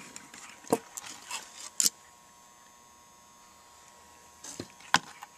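A few light clicks and knocks of handling, in two short clusters with a quiet stretch between.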